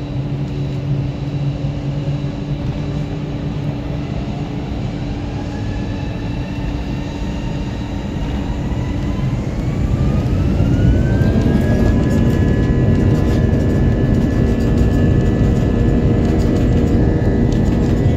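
Jet airliner engines heard from inside the passenger cabin on the ground, a steady rumble and hum. About a third of the way in, a whine starts rising in pitch over several seconds as the engines spool up, then holds at a higher pitch while the overall noise stays louder.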